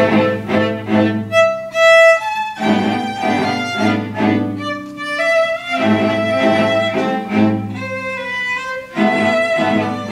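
String orchestra playing a tango: violins carry the melody in sustained bowed notes over short, repeated low chords from the cellos marking the beat.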